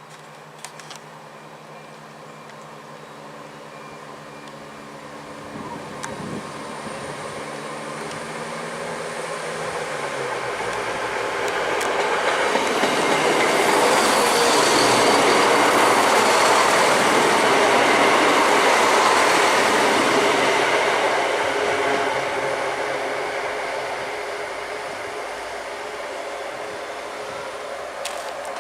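ScotRail Class 170 Turbostar diesel multiple unit pulling out of the station. Its diesel engines climb in pitch as it accelerates. It grows loud as it passes close by, then fades as it draws away.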